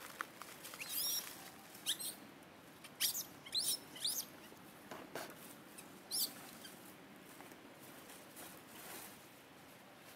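Baby macaque giving short, high-pitched squeaky cries, about six of them over the first six seconds, then falling quiet.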